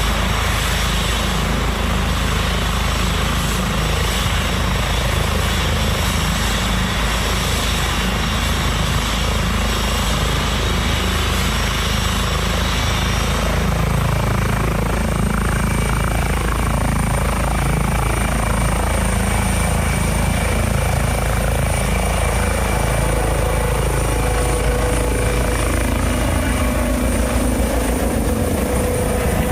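Air ambulance helicopter's engines and rotor running steadily, with a turbine whine whose high tones shift to a new pitch about halfway through.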